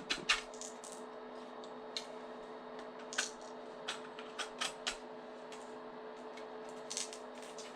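Knife blade scraping and clicking against a 3D-printed plastic part as support material is trimmed off: scattered short, sharp scrapes and snaps at irregular intervals over a steady faint hum.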